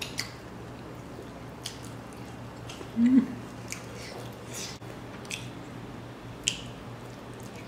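Close-up eating sounds: a man chewing and smacking on rice and dry pork eaten by hand, with scattered sharp wet mouth clicks. About three seconds in there is a brief low hum from him, the loudest sound, over a faint steady low hum throughout.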